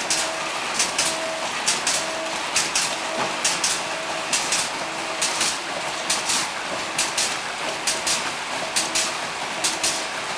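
Vertical form-fill-seal snack pouch packing machines running, with a steady machine noise and sharp, hissy clicks repeating about once or twice a second, often in pairs, as the sealing jaws cycle on each pouch. A short humming tone comes and goes in the same rhythm.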